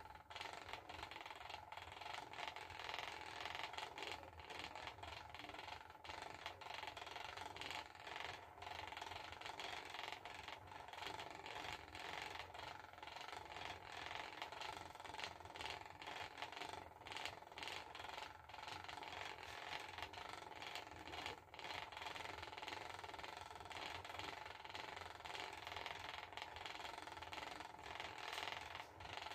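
Wooden spinning wheel treadled at fast production speed while spinning singles, its mechanism chattering and rattling steadily with many small clicks.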